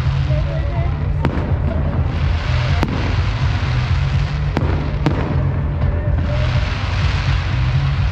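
Fireworks bursting: four sharp bangs, about a second in, near three seconds, and two close together around four and a half to five seconds, over a continuous noisy rumble, with music playing.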